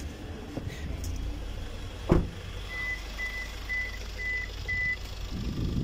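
A 2021 Maruti Suzuki Ertiga's 1.5-litre four-cylinder diesel engine idling steadily. About two seconds in, a car door shuts with a single thump, followed by five short high beeps at about two a second.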